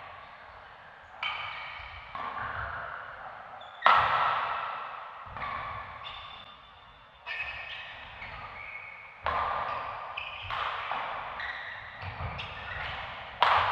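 Badminton doubles rally in an echoing indoor hall: sharp racket strikes on the shuttlecock every one to three seconds, mixed with high squeaks of court shoes on the mat.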